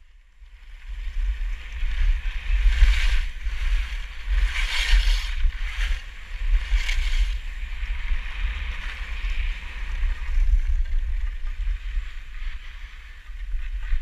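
Skis sliding over packed snow, a steady scraping hiss that swells several times, under heavy wind rumble on a GoPro's microphone while skiing downhill.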